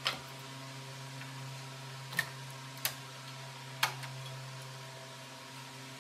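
A few sharp clicks and taps from setting up a stopped scroll saw, as a cut-out piece is lifted away and the blade is threaded through a hole in the board. There are four clicks in about four seconds, the first the loudest, over a steady low hum.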